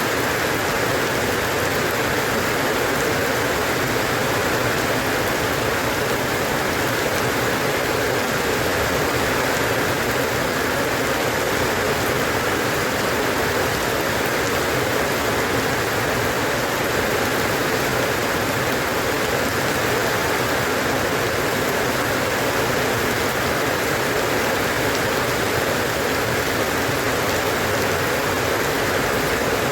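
Steady rain falling, an even hiss of drops with no pauses or changes.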